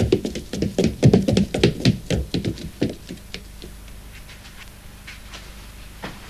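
Quick footsteps on a staircase: a rapid, uneven run of knocks that stops about three seconds in.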